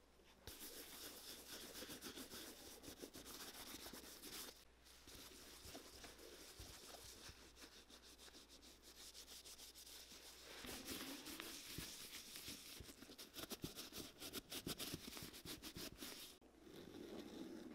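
Faint, steady rubbing and swishing of a hand in a thin disposable glove working leather cream into a boot's leather upper, with two short pauses.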